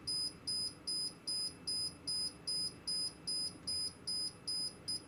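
Short high-pitched electronic beeps repeating evenly about three times a second, stopping just before the end.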